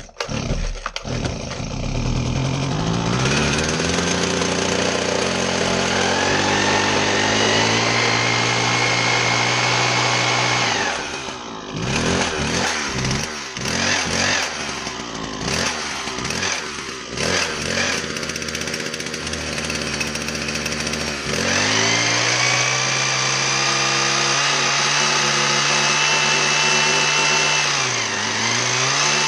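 Husqvarna 122HD60 hedge trimmer's small two-stroke engine running: it climbs from idle to a high steady speed, surges up and down unevenly for several seconds in the middle, then holds high speed again with a brief dip near the end, as the carburetor is being adjusted.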